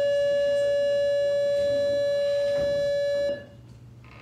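A loud, steady electronic beep tone that cuts off sharply about three seconds in, leaving quiet room tone.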